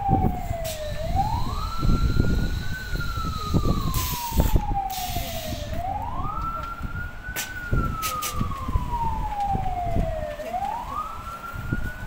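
Emergency vehicle siren wailing in slow cycles: a long falling tone, then a quick rise, repeating about every four to five seconds. Low rumbling noise and a few sharp clicks run underneath.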